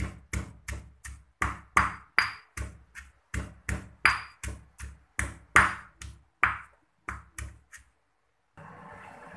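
Stone pestle pounding bird's-eye chilies and garlic in a granite mortar: a steady run of knocks, about three a second, each with a short ring. The pounding stops about three-quarters of a second before a steady hiss starts near the end.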